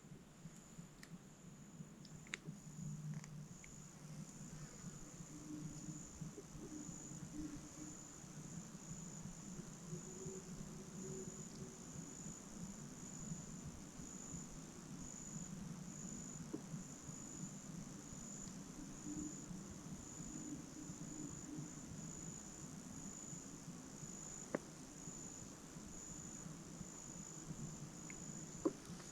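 Insects chirping steadily, a faint high-pitched pulsing call that repeats evenly, over a low background hum, with two sharp clicks near the end.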